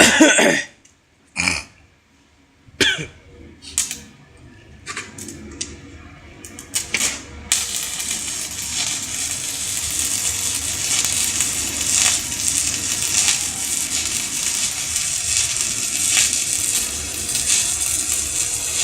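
A few separate clicks and short sputters, then a stick-welding arc from a Daesung welding machine strikes about seven seconds in and crackles and hisses steadily as the electrode burns.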